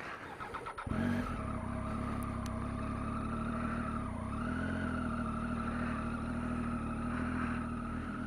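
Triumph Tiger 800 XCx motorcycle's three-cylinder engine running steadily at low speed on a dirt track. It comes in suddenly about a second in, with a brief dip and recovery in pitch around four seconds in.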